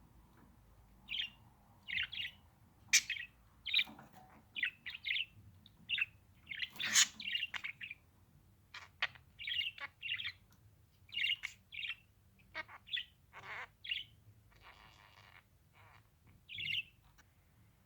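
Budgerigar chirping: a rapid, irregular series of short, high chirps, with a few sharp clicks mixed in.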